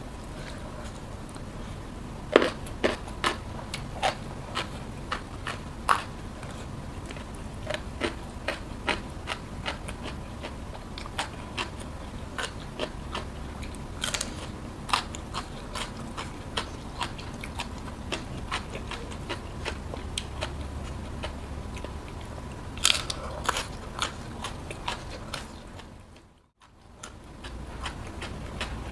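Close-miked eating sounds: crisp crunching bites and chewing of raw lalapan greens and fried chicken with rice, eaten by hand, in a run of sharp crunches. The sound drops out briefly near the end.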